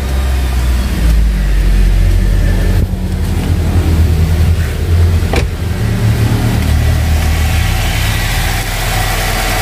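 Nissan X-Trail T30 engine running just after starting, idling with its pitch shifting up and down a few times. It runs with a freshly fitted alternator pulley and bearing, without the alternator-pulley clatter ('kletek-kletek') it had before the repair.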